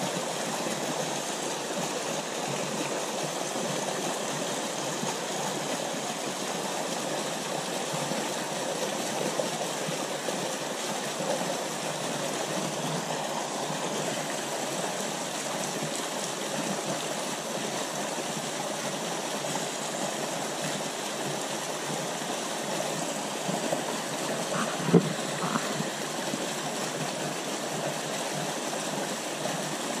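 Small rocky stream rushing steadily through a narrow white-water cascade over bedrock. A single sharp knock sounds once late on.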